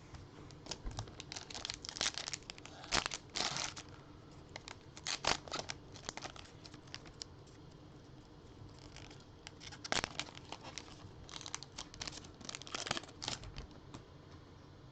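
Foil trading-card pack wrapper being torn open and crinkled by hand, in several bursts of crackling with a quiet pause midway, as the cards are pulled out and handled.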